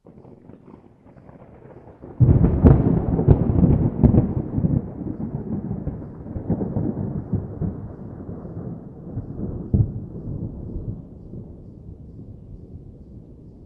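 Thunder: a faint low rumble, then a sudden loud crack about two seconds in that rolls on as a long rumble and slowly dies away, with one more swell near the ten-second mark.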